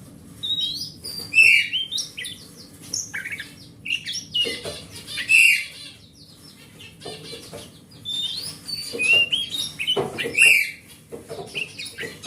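Oriental magpie-robin (kacer) singing: varied phrases of sweet whistles, slurred notes and harsher chattering, in bursts with short pauses between them.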